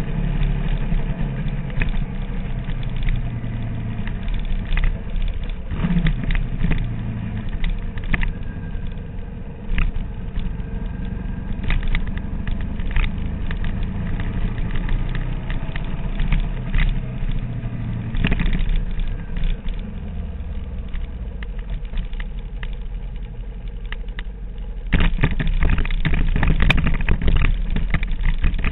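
Sport motorcycle engine running at low revs, heard from a tail-mounted camera with wind buffeting the microphone. About 25 seconds in, a louder rough crunching starts as the tyres roll onto gravel.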